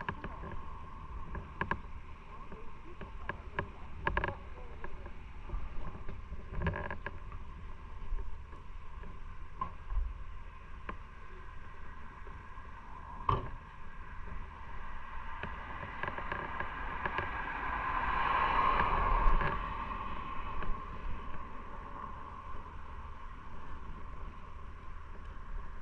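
Motorcycle riding, heard from an onboard camera: steady engine drone with wind noise and occasional light knocks, swelling louder for a few seconds about eighteen seconds in.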